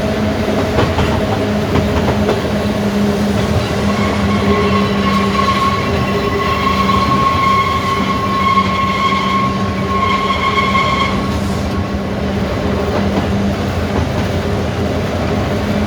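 Manx Electric Railway electric tram running along the track: a steady low hum over rumble and rail clatter. A high whine comes in about four seconds in and stops about eleven seconds in.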